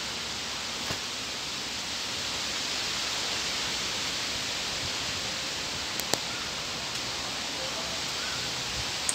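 Steady hiss of outdoor background noise, with two sharp clicks close together about six seconds in.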